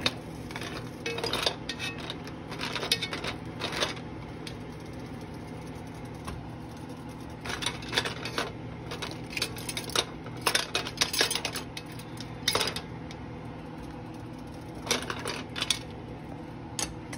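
Brass drawer knobs clinking and knocking against an enamelled cast-iron pot in irregular clusters as they are stirred with a spatula in a hot vinegar-and-flour cleaning bath, over a steady low hum.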